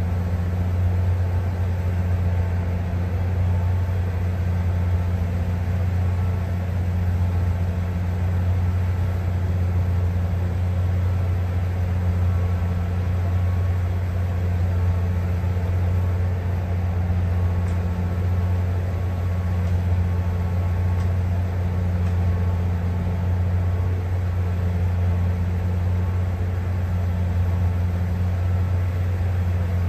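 An engine idling with a steady low drone and fainter hums above it, unchanging throughout.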